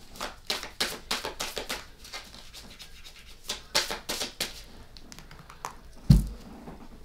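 Tarot cards being shuffled by hand: quick papery flicks of the cards in two spells, then a single louder thump about six seconds in.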